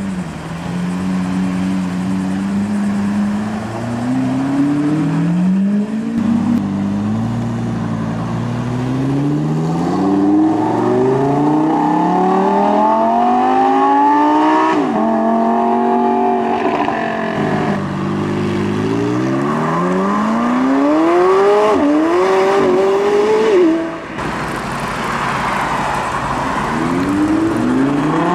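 Supercar engines, Lamborghinis among them, accelerating hard one after another. Each engine climbs in pitch and drops back at every upshift, several times over.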